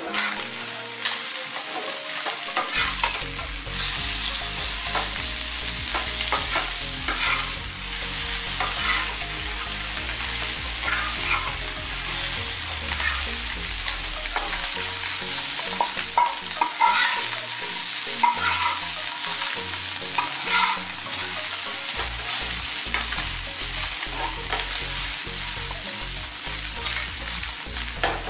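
Small whole chuna fish sizzling steadily as they shallow-fry in oil in a flat pan, with a spatula scraping the pan and turning them again and again.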